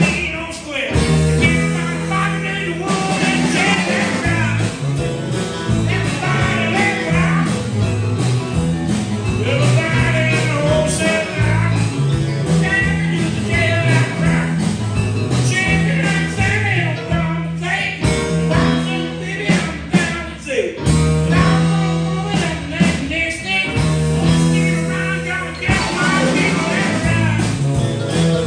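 Live band playing a song amplified through PA speakers: electric guitars, a stage keyboard and a drum kit, with a man singing into a microphone.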